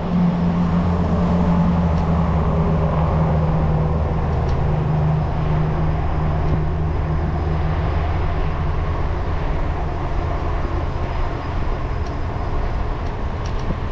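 Steady riding noise of an e-bike cruising at about 18 mph: wind rush and tyre noise on pavement over a low, even hum.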